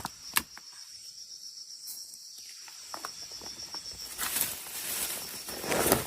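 Insects chirping steadily in a fast, even pulse, with a sharp click just after the start and rustling noises growing louder in the second half.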